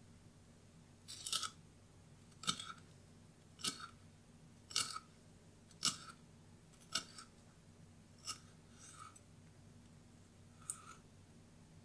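Kitchen knife slicing a red chilli into strips on a wooden chopping board: about nine crisp cuts roughly a second apart, each ending in a light tap of the blade on the wood, the last few softer.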